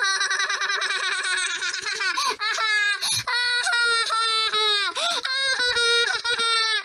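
Long, high-pitched acted laughter from a person's voice: rapid 'hee-hee-ha' pulses run on almost unbroken, with a few short breaks for breath.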